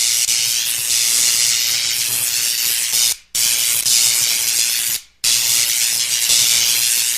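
Electricity sound effect: a loud, hissing electric buzz over a faint low hum. It cuts off abruptly twice, about three seconds in and about five seconds in, and starts again after a short gap each time.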